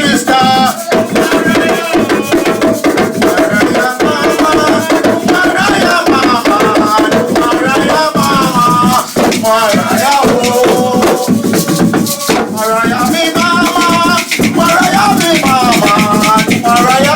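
Group drumming on hand drums with shakers rattling in a fast, steady rhythm, and voices singing a wavering melody over the percussion.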